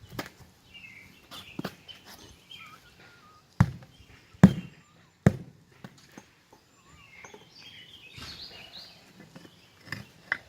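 Three hard knocks about a second apart, from hand tools striking at a stuck tire bead on a military split-rim wheel. Birds chirp throughout.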